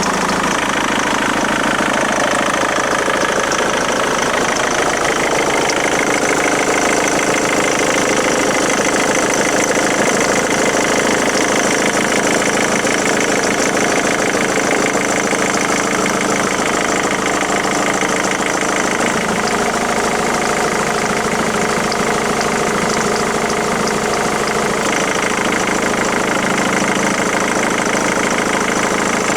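Ford Mondeo Mk3 2.0 TDCi four-cylinder diesel engine running steadily at idle, making the strange noise that the owner fears may be a sign of engine failure.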